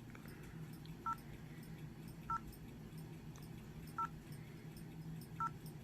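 LG Shine (CU720) keypad tones: four short two-note beeps, one per key press, spaced a second or so apart, over a faint steady low hum.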